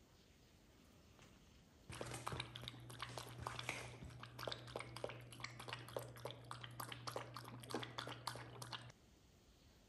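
A puppy lapping water and a cat crunching dry kibble at a pet feeder: a rapid, irregular run of wet clicks and crunches over a low steady hum. It starts about two seconds in and stops suddenly about seven seconds later.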